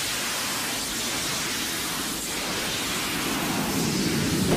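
Steady rushing hiss of the Space Shuttle launch pad in the seconds before main engine ignition, while the hydrogen burn-off igniters spray sparks under the engine nozzles.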